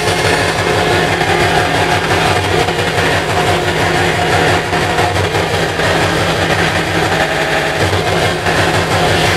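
Hardcore techno DJ set played loud over a club sound system, with a fast kick drum at about three beats a second under dense electronic sound.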